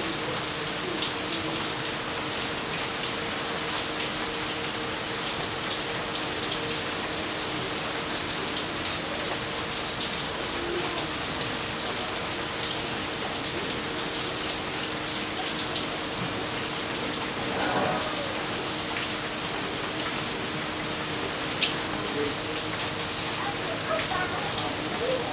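Steady rain falling on leaves, grass and a paved path, with scattered sharper drops.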